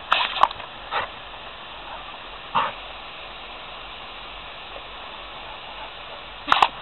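Labrador retriever giving a few short, spaced-out barks over a steady hiss.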